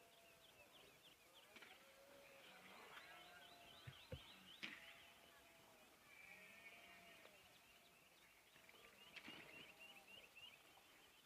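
Faint birdsong: many small birds chirping high and quick, with a repeated lower call that rises and falls every second or two, and a few light clicks.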